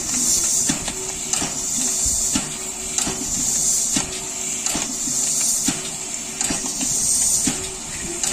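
Standing Ol49 steam locomotive hissing steam in a regular pulse that swells and fades about once a second, over a steady low hum, with a few light metallic clicks.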